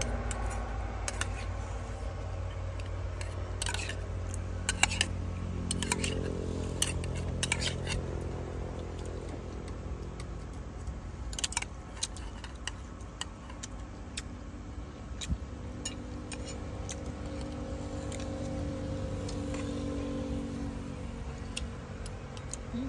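Metal spoons clinking and scraping against plates and bowls in scattered light clicks, most of them in the first half, over a steady low background rumble.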